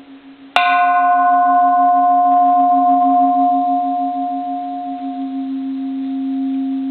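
Bronze Japanese Buddhist temple bell struck once about half a second in, ringing with a clear tone and several higher overtones. The upper overtones fade within a few seconds, and the main tone lingers over a low hum that pulses steadily.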